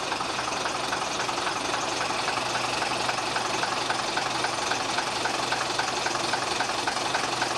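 A roller brake tester running with a Routemaster bus's front wheel on its rollers during the front-axle brake test: a steady mechanical drone with a light, regular ticking about three times a second.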